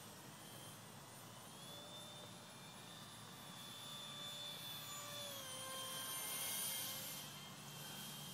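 Electric ducted fan of a small R/C Mirage 2000 park jet whining in flight. The whine's pitch rises about two seconds in and drops again about five seconds in as the throttle changes. It grows louder about six to seven seconds in as the jet passes, then eases.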